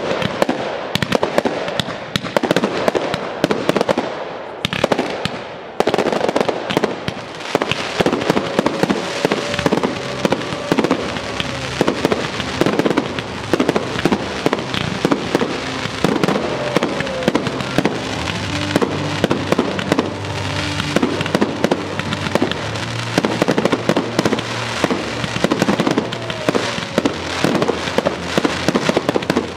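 Aerial fireworks display: a rapid, near-continuous string of shell bursts and crackling stars, easing off briefly about five seconds in before building again, with music playing underneath.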